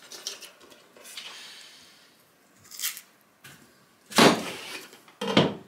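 Kitchen knife cutting through a pear on a table: small clicks and scraping, then a loud knock a little after four seconds in as the blade goes through and strikes the table, and a second, shorter knock near the end.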